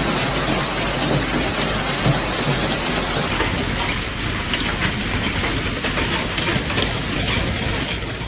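Heavy rain pouring down, a steady dense hiss, with an abrupt change in its sound about three seconds in.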